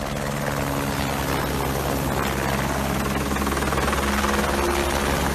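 Helicopter rotor beating and engine running steadily, growing louder as the helicopter comes close.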